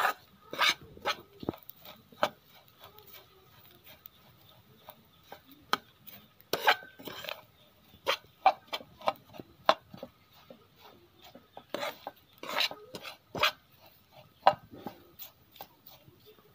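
A spatula scraping and clinking against a pan while stir-roasting a dry mix of grated coconut and dried prawns, in irregular strokes with a few sharper knocks.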